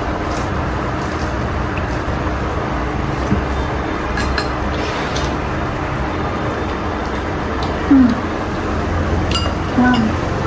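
Pork, sweet potato slices and okra frying in oil in a nonstick pan: a steady sizzle with a few light clicks. Two brief low sliding sounds stand out, about eight seconds in and near the end.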